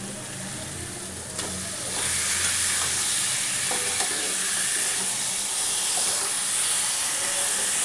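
Chicken pieces going into hot oil and ground masala in a kadai, sizzling; the sizzle jumps louder about two seconds in and then holds steady.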